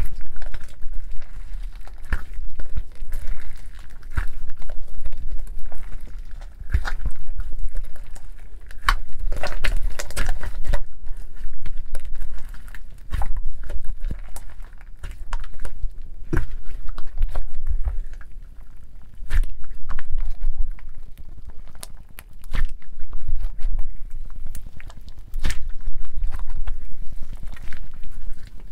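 Homemade water-and-sugar slime being stretched, squeezed and pressed between the fingers: sticky squishing with dense crackling and popping clicks, coming in repeated waves.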